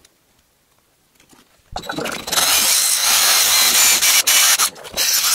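A few faint handling clicks, then about two seconds in a cordless drill starts up, spinning an abrasive sanding drum that grinds loudly against Bondo body filler on a 3D-printed casting pattern, dipping briefly now and then as the drum is pressed and lifted.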